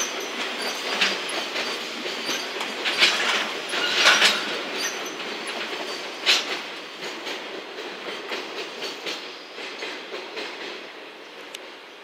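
Container flat wagons of a freight train rolling past, wheels clacking irregularly over rail joints over a steady rumble. The sound fades as the last wagons pull away.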